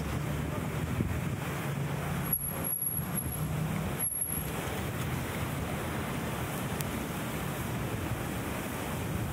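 Steady urban road traffic noise with a low rumble of car engines. A short high-pitched tone sounds twice, about two and four seconds in.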